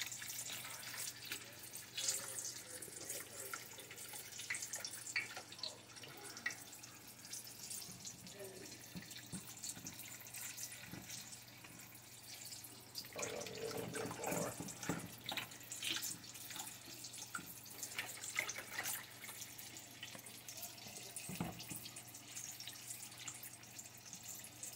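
A whisk stirring a simmering cream sauce in a stainless steel skillet: liquid sloshing and bubbling, with many light clicks of the whisk against the pan.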